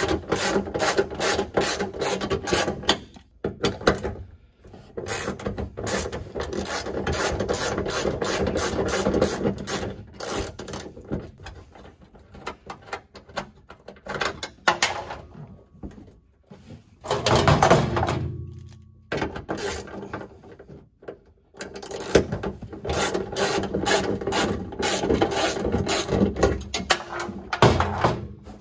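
Hand ratchet clicking in quick runs with short pauses as the deck-lid hinge bolts are backed out, with one louder, duller sound about two-thirds of the way through.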